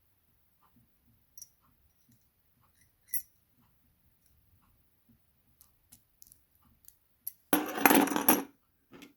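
Small metal clicks from a disassembled Evva DPS lock's parts being handled, then about a second of loud clattering near the end as the small metal lock parts knock together.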